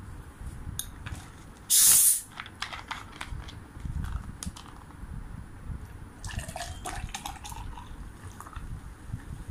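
Cap of a plastic cola bottle twisted open with a short, loud hiss of escaping gas about two seconds in, then cola poured into a glass, fizzing, from about six seconds in.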